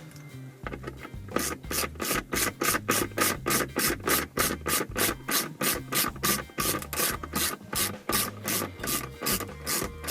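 Hand ratchet and socket clicking in a steady rasping rhythm, about three to four strokes a second, as a screw is backed out; faint at first, it gets louder about a second and a half in.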